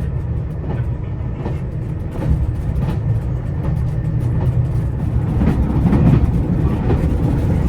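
Diesel express railcar running with a steady low engine rumble, which swells about six seconds in.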